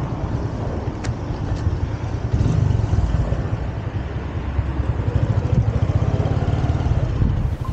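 Moto taxi's motorcycle engine running as it rides along a paved street, heard from on the bike, with a heavy low rumble.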